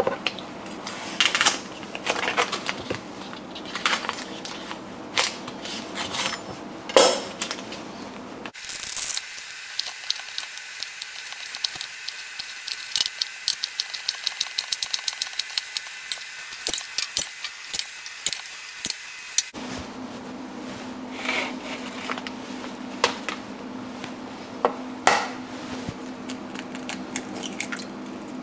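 Chef's knife slicing Chinese sausage on a wooden cutting board: a quick, even run of blade knocks, several a second, through the middle. Before and after it come scattered knocks and clatter of the knife and dishes being handled, with a low steady hum in the last third.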